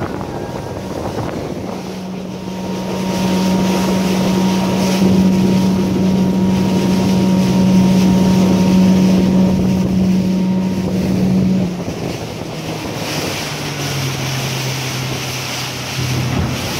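Outboard motor of a small fishing boat running steadily under way, with wind on the microphone and water rushing along the hull. About two-thirds of the way through the motor's note drops to a lower pitch and the sound gets quieter.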